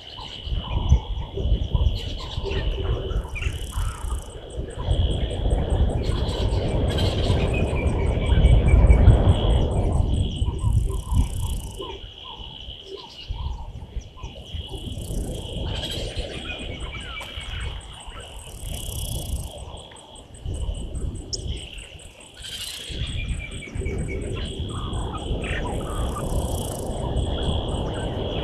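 Bush ambience: a steady high insect trill with fast ticking and scattered short bird calls. Under it a loud low rumble sits heavy for the first ten seconds or so, dies away, and builds again near the end.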